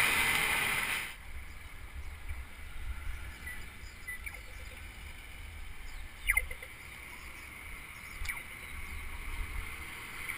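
Wind and riding noise on a bicycle-mounted camera's microphone. A loud rush in the first second stops abruptly, giving way to a quieter low rumble of wind buffeting. A few sharp clicks come through, the loudest about six seconds in.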